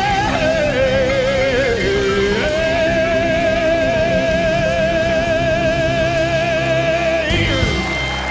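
Live band ending a ballad while a male singer holds the final note with a wide vibrato: a short falling phrase, then one long note of about five seconds, which gives way to the band's closing chord near the end.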